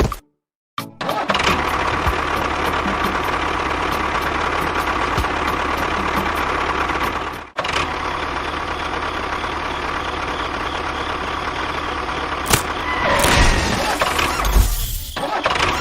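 A small motor running steadily, with a brief break about halfway through and a less even stretch near the end.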